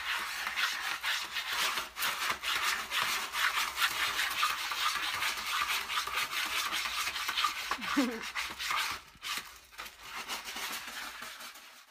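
Cat digging and raking pellet litter in a plastic litter tray: a dense run of rapid gritty scratches that pauses briefly about nine seconds in and fades near the end.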